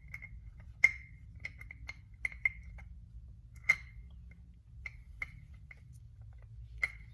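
Small metal parts of an Andis Master clipper clicking and clinking as they are handled and fitted back together. There are scattered sharp taps, each with a brief ring, the loudest about a second in and again near four seconds.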